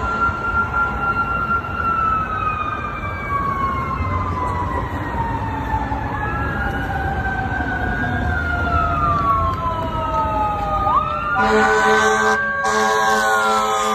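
Ambulance siren on a slow wail, several overlapping tones rising and falling, over steady traffic noise. About eleven seconds in, two loud horn blasts with a brief break between them cut across the siren.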